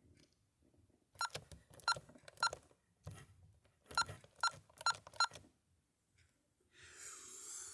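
Honeywell Vista 20 alarm keypad beeping as keys are pressed to enter programming: about three short beeps, then four more about a second and a half later. A brief hiss comes near the end.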